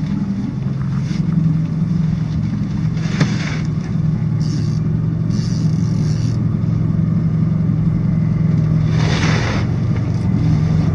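Boat's outboard motor running steadily at low speed, a continuous low hum.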